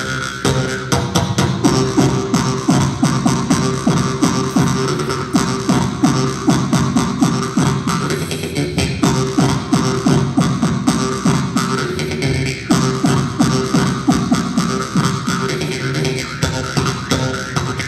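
Jaw harp played into a microphone: a steady low drone struck by fast, even plucks, with the overtone melody shifting above it.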